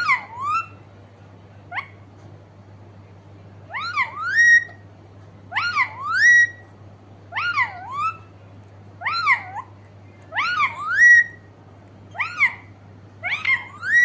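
Pet parakeet calling over and over: a wavering, whistled rise-and-fall call repeated about every one and a half to two seconds, with one shorter call among them.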